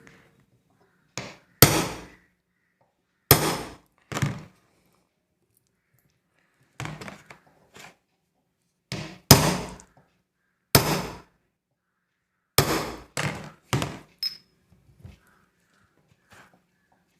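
A hammer striking a sharp chisel against a ceiling fan's steel shaft, about a dozen separate sharp strikes at uneven intervals, some in quick runs, each ringing briefly. The strikes are staking the slightly worn shaft so it sits tight in its bearing and stops the play that makes the fan knock.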